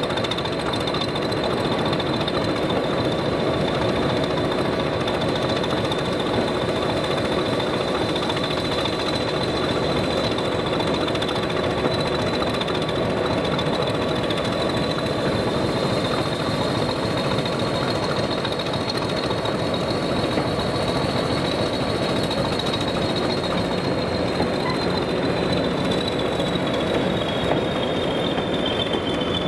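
Diesel locomotive engine running steadily with a heavy knocking beat and a high whistle over it; the whistle rises a little, then falls away near the end.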